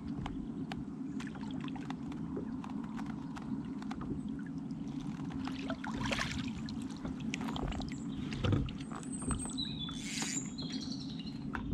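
Water moving around a small fishing kayak, with scattered small clicks and a dull knock about eight and a half seconds in.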